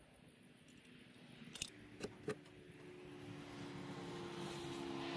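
Three sharp metallic clicks about one and a half to two and a half seconds in. Then a passing vehicle's engine hum grows steadily louder toward the end.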